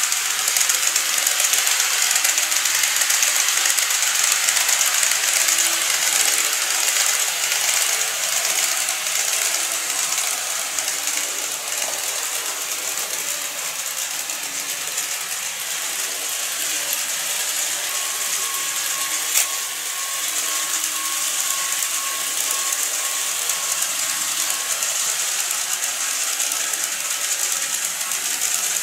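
Model E233 series 1000 electric train running along sectional track: a steady whir and rattle of its motor and wheels on the rails.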